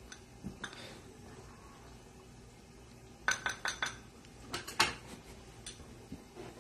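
Small metal spoon clinking against a small glass dish, in a quick cluster of taps about three seconds in and another near five seconds.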